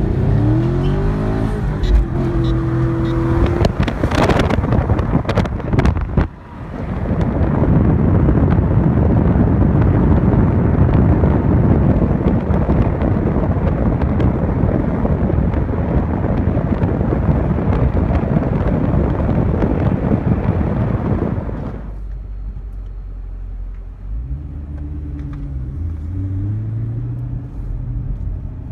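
A car engine accelerating hard, its pitch climbing in steps through gear changes. It gives way to a loud, steady rush of wind and road noise that cuts off suddenly after about fifteen seconds. Near the end the engine pulls up through the revs again, more quietly.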